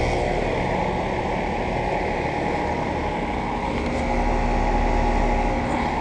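A new Rheem Classic 2.5-ton air-conditioner condensing unit running: a steady hum of the compressor under the rush of the outdoor fan. A low steady tone joins about four seconds in.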